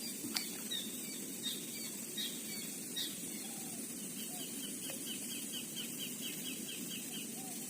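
Small birds calling outdoors: scattered high chirps, then a fast, even run of about five short chirps a second lasting around three seconds, over a steady low background noise.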